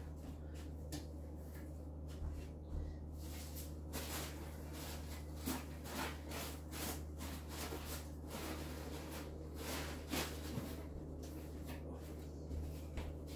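Packing peanuts rustling and clicking in irregular bursts as they are shaken and poured out of a cardboard box, over a steady low hum.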